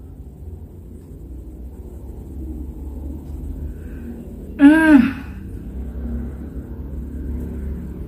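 A woman's short appreciative vocal sound, pitch rising then falling, about halfway through, as she reacts to a scent, over a steady low background rumble.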